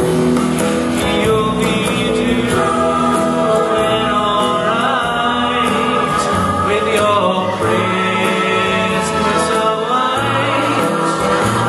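Live music: a slow song with singing over a band, the voices holding long notes.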